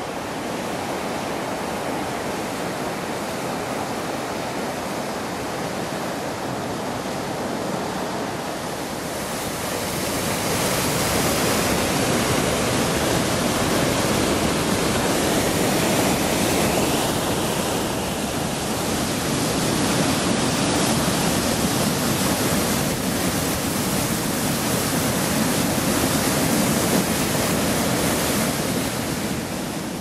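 Rushing water of the partly frozen Chaudière River falls pouring through openings in the ice: a steady noise that grows louder about ten seconds in.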